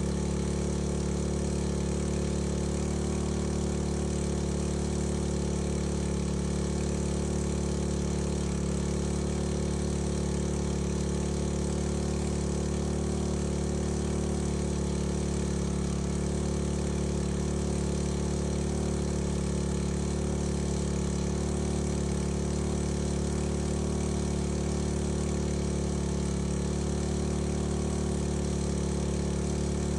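Small engine of a portable fire-fighting water pump running at a steady, unchanging speed, pumping water from a tank out through a fire hose.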